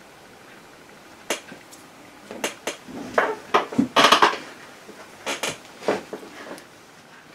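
Painting tools clattering and clinking as they are handled: a run of sharp clicks and short knocks of small hard objects, the loudest cluster about four seconds in.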